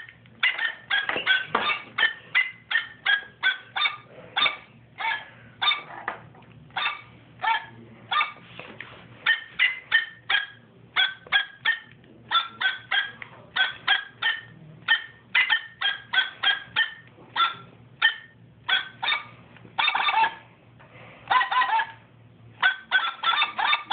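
Rapid run of short, high-pitched yips and honks, several a second in a rhythmic, tune-like pattern: a person imitating a dog's yapping to voice a hand puppet. A steady low hum runs underneath.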